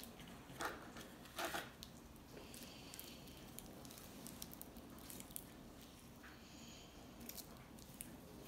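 Homemade slime being kneaded and stretched by hand, making faint squishing and small sticky clicks, with two louder squishes in the first second and a half.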